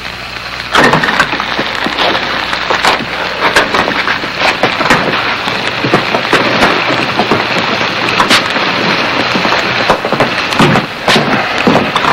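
Food sizzling and crackling in a hot frying pan, starting suddenly about a second in, with many sharp pops through the hiss.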